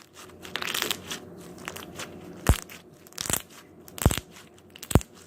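Slime being squished and worked in the hands, crackling, with several sharp pops from trapped air.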